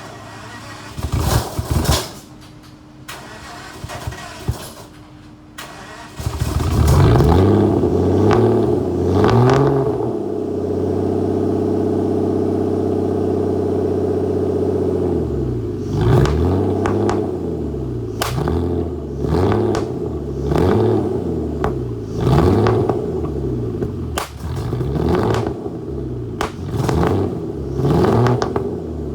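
Aston Martin DB9 V12 starting with a misfire: a few sharp pops while cranking, then it catches about six seconds in and runs. After a few seconds at steady revs it is revved up and down over and over, with sharp pops and backfires through the exhaust.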